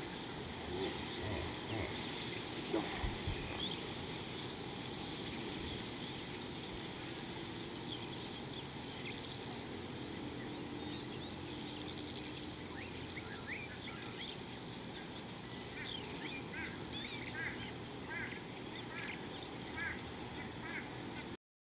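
Birds calling at a watering hole over a steady outdoor hiss: scattered calls early on, then a busy run of short chirps through the second half. A few low knocks sound in the first few seconds.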